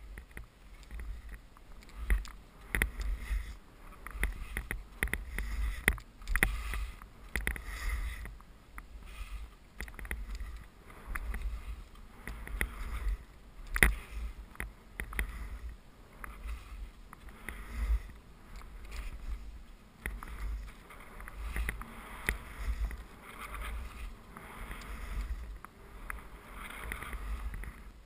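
Skis swishing through fresh powder snow turn after turn, the hiss swelling and fading every second or two, over wind rumbling on the moving camera's microphone.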